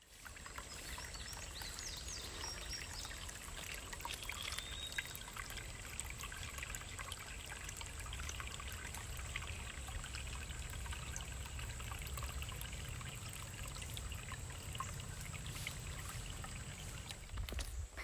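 River water flowing steadily, with a few faint high chirps a few seconds in.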